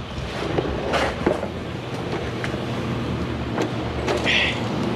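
A steady low rumble with a few light knocks and scrapes from someone moving and handling things, and a short higher hiss about four seconds in.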